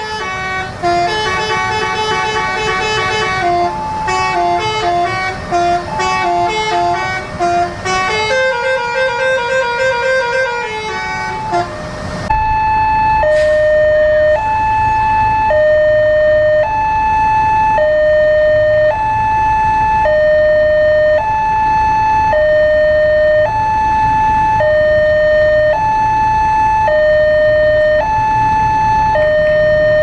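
A tour bus's telolet musical horn (Basuri type) playing a quick tune of stepping notes in several phrases. About 12 seconds in it gives way to a railway level-crossing alarm from a pole loudspeaker: a two-tone signal alternating between a short high note and a longer low note, about once every two seconds, over idling motorbike and bus engines. The alarm warns that a train is about to pass.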